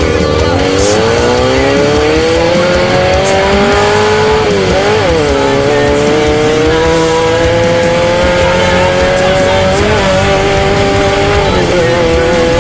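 Off-road race vehicle's engine running hard at high revs. The pitch drops at a gear change right at the start, climbs over the next few seconds, wavers briefly near the five-second mark, then rises slowly and steadily as the vehicle keeps accelerating.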